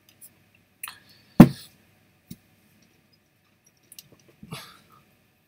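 A few scattered short clicks and a single louder knock about a second and a half in, with near quiet between them.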